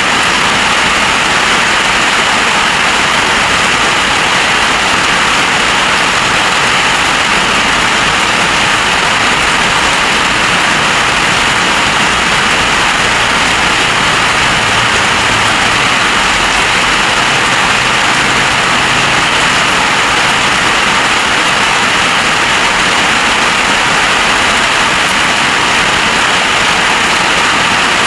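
Heavy rain in a storm, a constant loud rush with no let-up.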